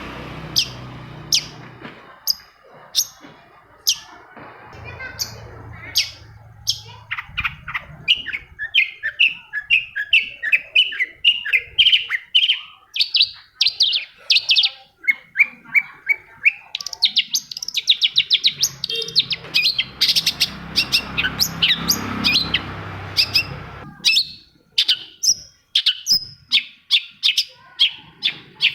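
Long-tailed shrike singing a fast, varied run of short chirps and sharp click-like notes, with quick rattling trills in places.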